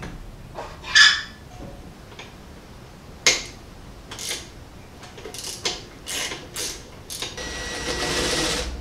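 Wrenches and metal parts clinking and clanking under a car while exhaust fasteners are worked loose, then a cordless power tool whirring steadily for about a second and a half near the end as it runs a bolt at the exhaust pipe joint.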